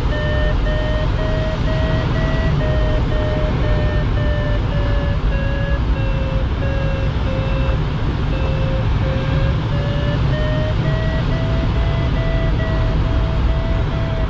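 A glider's audio variometer beeping about twice a second, its pitch drifting slowly up and down as the climb rate changes, over steady airflow noise in the cockpit.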